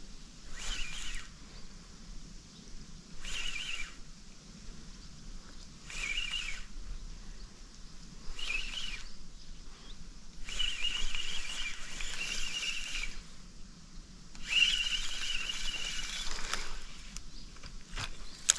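Spinning reel being cranked in short spells about every two and a half seconds, then wound for two longer spells of a couple of seconds each: the stop-and-go retrieve of jig fishing.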